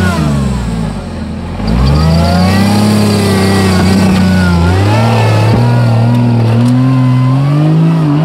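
Competing off-road 4x4's engine revving under load. It eases off briefly about a second in, picks up again, then climbs in pitch in steps from about five seconds in.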